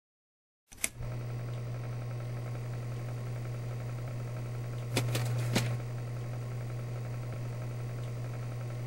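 A steady low hum that starts with a click about a second in, with a few sharp clicks about halfway through.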